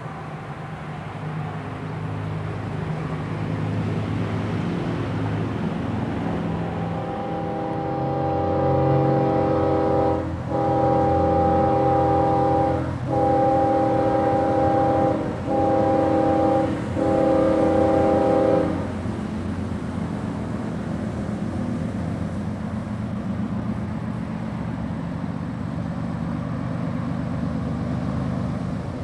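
Diesel locomotive air horn sounding a chord in five blasts about a second and a half to three seconds long, the fourth one short, over the steady low rumble of an approaching freight train's diesel engines.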